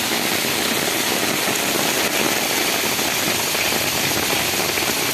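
Heavy rain falling steadily, an even, dense hiss with no let-up.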